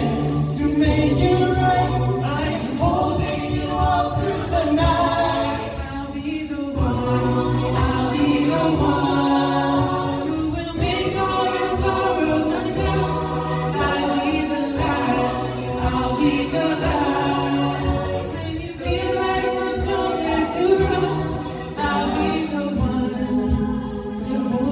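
High school a cappella group singing in layered harmony over a sung bass line, with no instruments.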